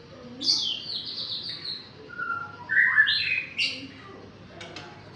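A young bird singing: a quick run of high notes falling in pitch, then a louder burst of varied chirps and calls, after which it falls quiet.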